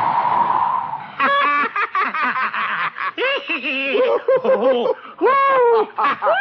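Ride soundtrack laughter in a string of bursts, rising and falling in pitch, after a steady rushing noise fades out in the first second.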